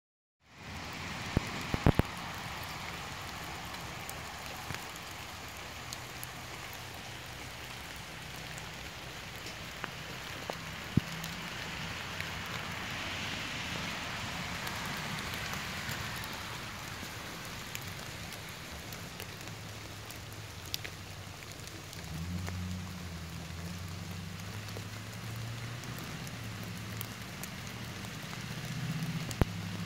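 Steady rain falling, an even hiss with scattered drops ticking sharply. A low hum comes in about two-thirds of the way through and runs under the rain.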